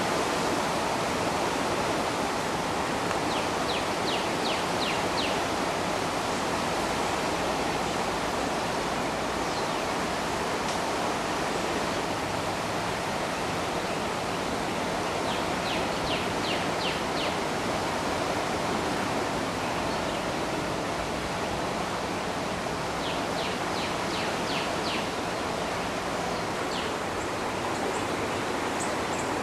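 Steady rush of the flooded Guadalupe River's fast current. Three times, a short run of about six quick, high notes sounds over it.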